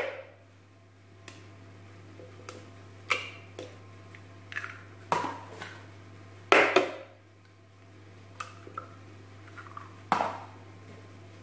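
Eggs being cracked one after another on the rim of a plastic mixing bowl: a series of sharp taps and shell cracks a second or so apart, the loudest about two-thirds of the way through and near the end, over a low steady hum.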